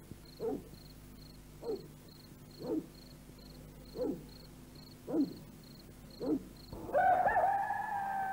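A hen clucking, six short falling calls about a second apart. About seven seconds in, a loud long held tone with a slight fall begins.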